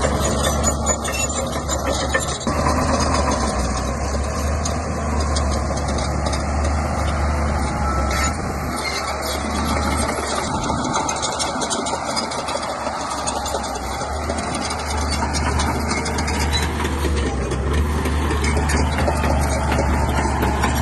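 Shantui bulldozer's diesel engine running steadily, with a deep, continuous hum that eases slightly about halfway through.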